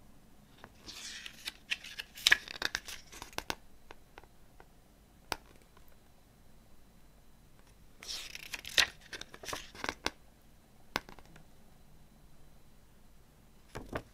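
Glossy paper pages of a CD booklet being turned by hand, rustling and crinkling in two bursts, one about a second in and another about eight seconds in. Light clicks fall in between, and there is a soft thump near the end.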